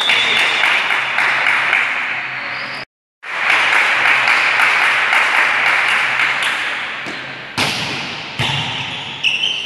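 Indoor volleyball play in a large echoing gym: ball hits and thuds over a steady wash of hall noise, with sharper hits near the end. The sound drops out briefly about three seconds in.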